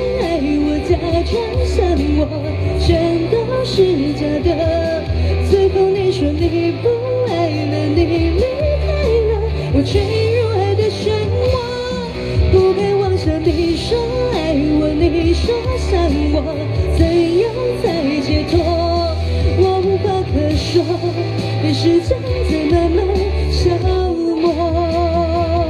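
A woman singing a pop song live into a handheld microphone, with vibrato on held notes, over amplified backing music with a steady bass line.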